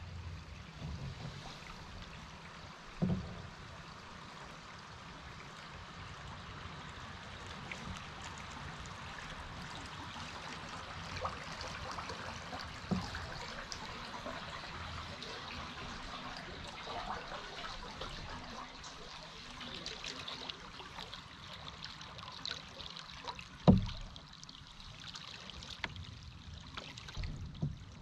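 Rushing water of a small river in spring melt as a solo canoe runs down it, with a few scattered knocks, the loudest a sharp one about three-quarters of the way through.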